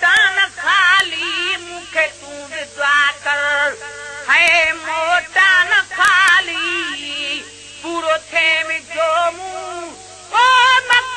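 Solo voice singing a Sindhi devotional naat in long, wavering phrases with heavy vibrato, broken by short pauses, over a faint steady hum.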